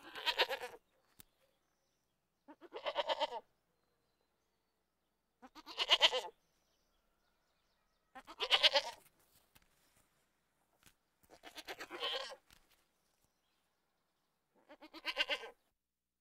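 A goat bleating six times, each call about a second long with a quavering tremble, spaced a few seconds apart.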